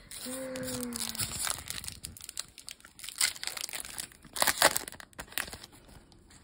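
Foil wrapper of a Topps baseball card pack crinkling as it is ripped open, with the loudest tearing bursts about four and a half seconds in, then lighter rustling of the wrapper and cards.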